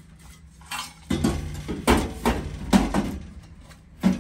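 Metal keg clanking and scraping on the rack inside a stainless steel biochar barrel's burn chamber as it is slid in and rolled into place. Starting about a second in, a run of knocks and thumps.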